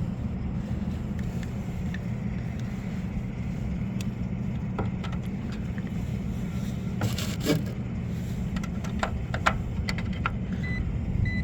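Rooftop air-conditioning equipment running with a steady low mechanical hum, with a handful of sharp clicks about five, seven and nine to ten seconds in.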